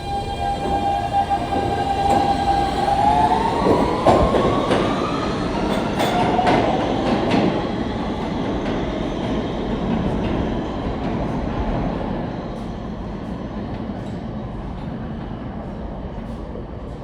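R160 subway train pulling out: its propulsion motors whine on a steady pitch, then rise in pitch as it accelerates. Rumble and a few sharp wheel clicks on the rails peak a few seconds in, then fade away as it leaves.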